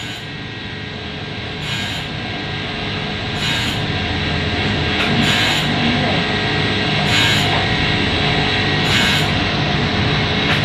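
CO2 laser cutting machine running: a steady machine hiss and hum, with a louder swell of hiss about every two seconds.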